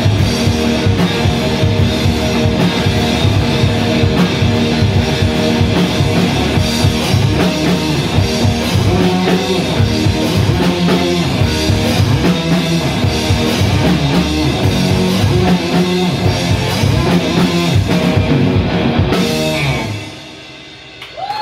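Live rock band playing loud and dense without vocals: electric guitar over a full drum kit. The playing stops abruptly about a second and a half before the end, leaving only a fading ring.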